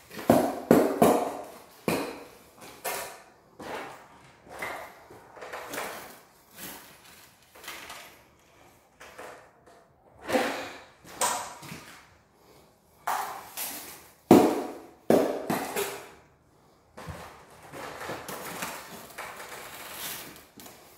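Shovel working wet concrete mix: irregular scrapes and knocks as it is dumped onto the floor and scooped out of a wheelbarrow.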